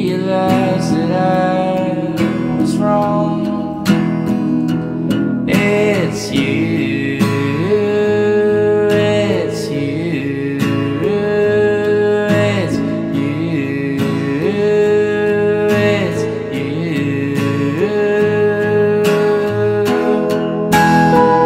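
Background music: a song with guitar in a stretch without words, its long held notes sliding from one pitch to the next.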